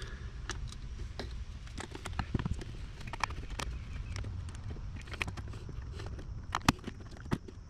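Scattered metal clicks and taps of slip-joint pliers gripping and working a spring hose clamp on a radiator hose, with a low steady hum underneath. The sharpest clicks come near the end.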